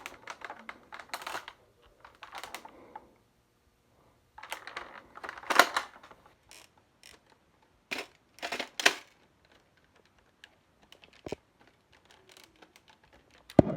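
Plastic clicks, scrapes and rattles of a Nerf blaster being reloaded by hand: several clusters of clicks with short pauses between them, and one sharp clack near the end.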